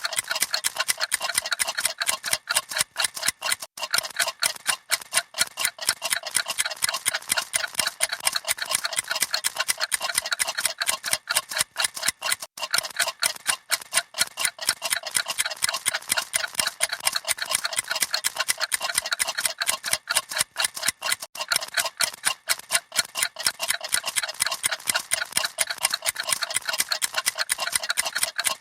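Clocks ticking rapidly: many dense, overlapping ticks in an unbroken, steady run.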